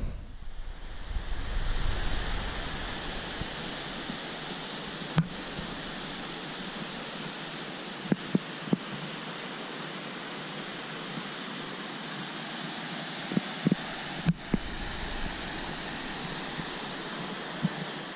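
Steady rushing of a waterfall and water running over rocks, with some low wind rumble on the microphone in the first few seconds and a few short knocks scattered through.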